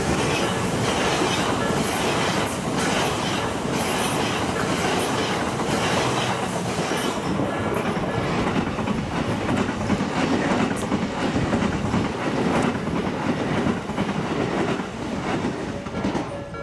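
Tobu Skytree Line electric train passing at a level crossing: a steady, loud rush of wheel and running noise with repeated clacks of the wheels over the rail joints.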